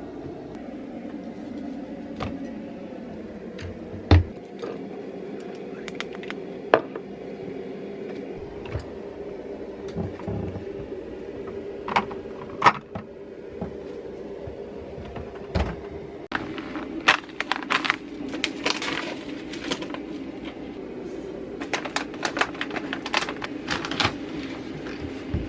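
Kitchen utensils clinking and knocking against bowls while dry baking ingredients are measured and mixed: scattered sharp clicks, with runs of quick clicking and scraping about two-thirds of the way in and again near the end. A steady low hum runs underneath.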